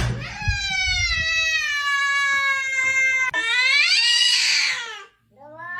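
Domestic cat yowling in long, drawn-out cries, in protest at being fitted with a harness. The first cry lasts about three seconds and slowly falls in pitch, a second follows at once, and after a brief break a third begins near the end.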